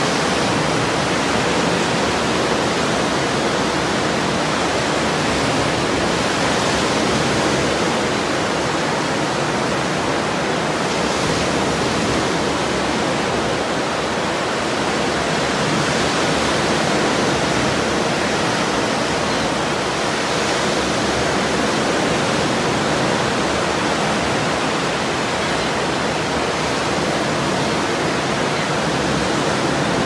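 Ocean surf: a steady, even wash of breaking waves, swelling and easing only gently.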